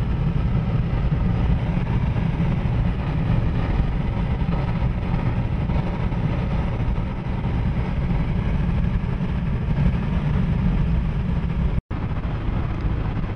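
Steady road and engine noise inside a moving vehicle, a dense low rumble with hiss above it. It cuts out for an instant near the end.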